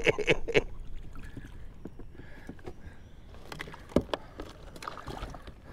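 Fishing kayak rocking on the water, with light knocks and clicks against its hull and gear; a sharper knock comes about four seconds in.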